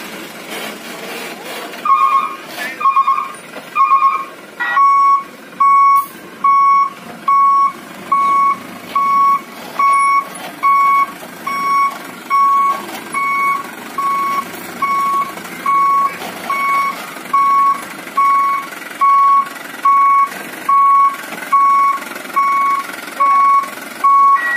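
Dump truck's reversing alarm beeping at an even pace, a little over one beep a second, over the truck's engine running as it backs up. The beeping starts about two seconds in; the first few beeps are spaced slightly wider.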